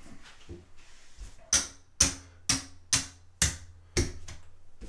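Casino chips clicking against one another as a hand picks them up off the felt layout, a run of sharp clicks about two a second starting about one and a half seconds in. These are the losing place bets being taken down after a seven-out.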